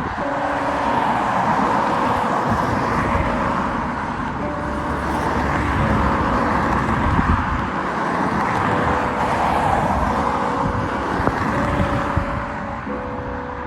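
Aircraft engine noise, a steady rushing roar that eases off near the end, with faint music notes underneath.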